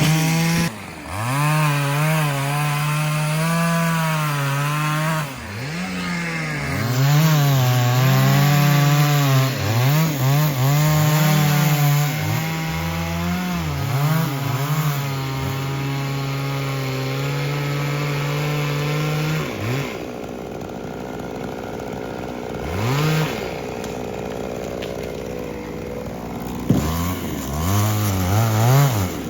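Two-stroke chainsaw cutting into wood, its engine pitch sagging and recovering again and again under load. After about twenty seconds it drops to a quieter, lower run, with a couple of short revs near the end.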